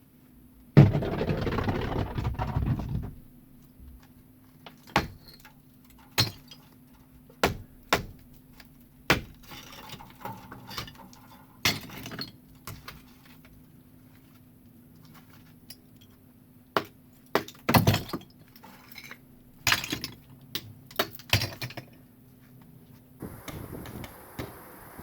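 Bricks and mortar of a chimney being knocked apart. A rattling clatter of falling rubble comes about a second in and lasts about two seconds, followed by scattered single knocks and clinks of bricks striking each other.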